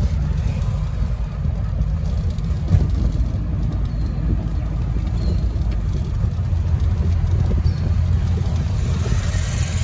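Steady low rumble of road and engine noise from a moving vehicle, with a hiss that swells near the end.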